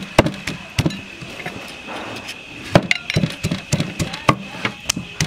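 Wooden pestle pounding in a tall wooden mortar, giving irregular dull knocks about two a second, as ingredients for Khmer papaya salad are crushed.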